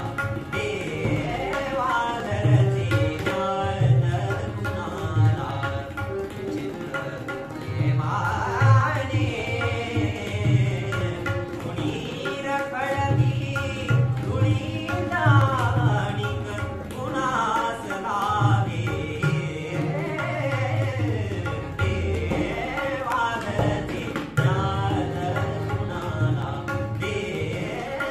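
Male voice singing a Marathi semi-classical song with sweeping ornamented runs, accompanied by tabla keeping a steady rhythm and a sustained harmonium.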